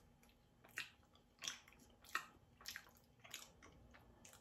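Faint, wet mouth sounds of someone chewing food: about six soft smacks, one every half second or so.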